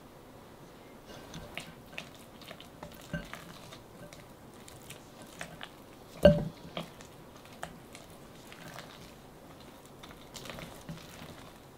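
Silicone spatula mixing mashed sweet potato and heavy cream in a glass bowl: soft scraping with scattered light taps against the glass, and one louder knock on the bowl about six seconds in.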